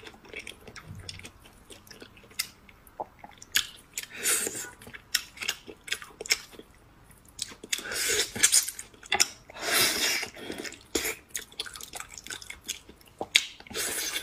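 Close-miked wet chewing and lip-smacking on gelatinous braised pig trotter, full of quick moist clicks. Louder wet sucking comes in several stretches, about four, eight and ten seconds in, as she sucks sauce from her fingers.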